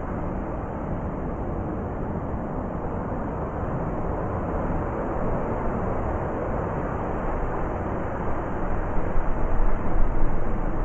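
Blizzard wind blowing as a steady rushing noise, swelling midway and turning gusty, with louder low buffeting near the end.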